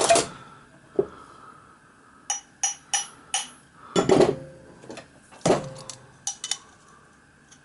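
Metal hand tools, a hammer and a steel combination square, clinking and knocking against the copper boiler shell and the steel plate on the workbench: a run of four quick ringing clinks, then a few heavier knocks.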